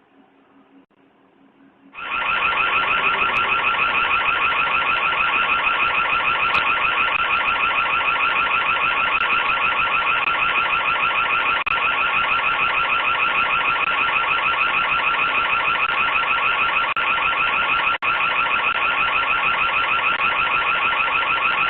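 Electronic alarm siren that comes on about two seconds in, loud, with a fast, even warble at a steady high pitch that does not change.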